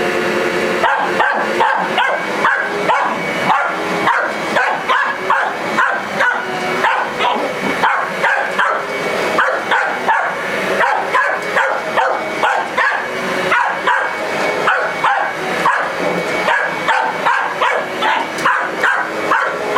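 Dog barking nonstop at a running vacuum cleaner, a little under two barks a second, over the cleaner's steady hum.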